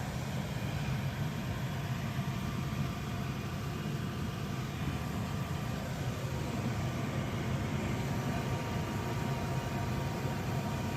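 HVAC unit running on a call for heat, a steady low hum with no change in level.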